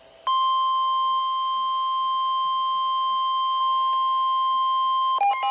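Emergency alert tone ahead of a severe thunderstorm warning: a loud steady single-pitch tone just above 1 kHz starts about a quarter second in and holds for about five seconds. Near the end it gives way to a rapidly pulsing beep that alternates between two pitches.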